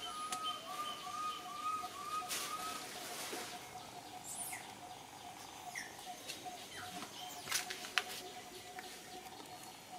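Birds calling: a quick run of short, evenly repeated notes, about two or three a second, during the first few seconds, over a steady series of lower repeated notes, with a few brief soft rustles between.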